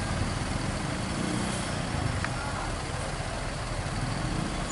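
Steady roadside vehicle noise: a low engine rumble with a hiss over it, and a single faint tick about two seconds in.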